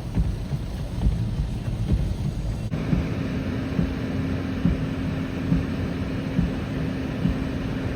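Outdoor storm ambience: wind rumbling and buffeting on the microphone with a low steady background roar. About three seconds in the sound changes abruptly and a steady low hum joins the rumble.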